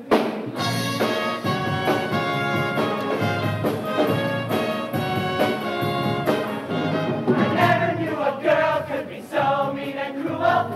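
A brass-led live band playing an up-tempo instrumental passage for a show choir, opening on a sharp accented hit. About seven seconds in, the choir's voices come in over the band.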